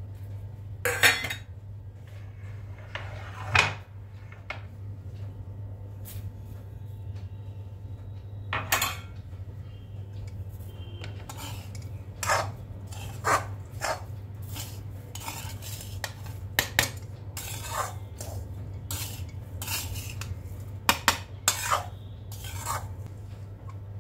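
A steel spoon stirring roasted semolina in a metal kadai, knocking and scraping against the pan in irregular clanks, over a steady low hum.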